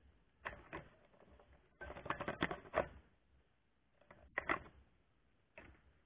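Plastic bubble wrap and cardboard crinkling and rattling against a wire cage as they are handled, in several short bursts of crackling clicks, the loudest about two seconds in and again near the middle.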